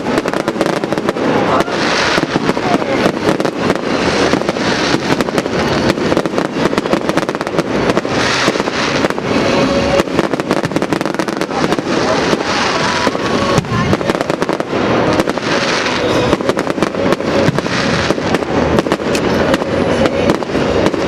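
Fireworks display: an unbroken barrage of rapid bangs and crackles, with several louder crackling bursts every few seconds.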